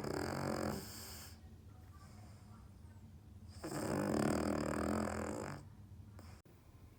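Cavalier King Charles Spaniel snoring in its sleep: a short loud snore right at the start, then a longer one about four seconds in that lasts about two seconds. The owner takes the snoring for a sign of sleep apnea.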